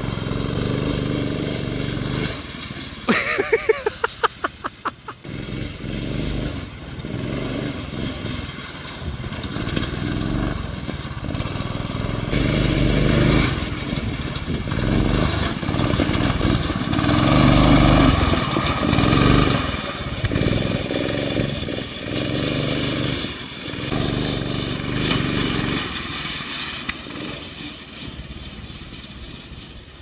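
Small go-kart engine running hard, its pitch rising and falling as the kart is driven fast. A quick run of sharp knocks comes about three seconds in.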